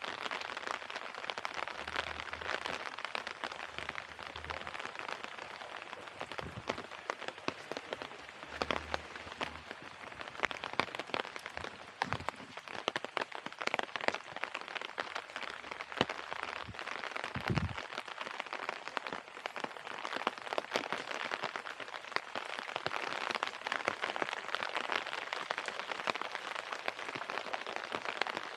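Rain pattering: a steady hiss dotted with many small, irregular drop ticks, a few of them louder near the middle.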